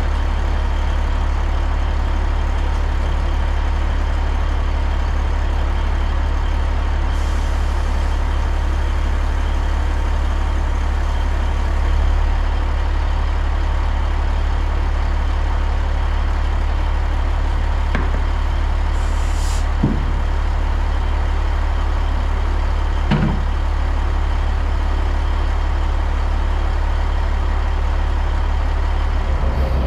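Heavy diesel truck running steadily with a deep engine drone. There are two brief hisses partway through and a few short knocks in the second half.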